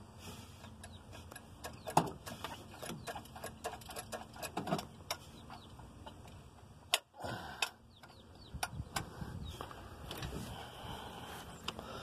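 Irregular light metallic clicks and taps from a hand working the carburetor and its throttle linkage on a stopped engine, with a sharper click about two seconds in and another about seven seconds in.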